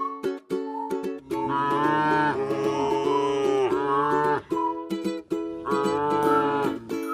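Cows mooing in long drawn-out calls, one from about a second in lasting some three seconds and another near the end, over plucked-string background music.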